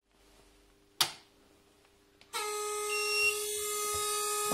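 A sharp click about a second in, then a cheap 3D printer's small cooling fan starts up with a steady, horn-like buzzing whine. The whine is the typical start-up noise of a cheap fan whose bearing has run dry, fixed with a drop of oil on the central bearing.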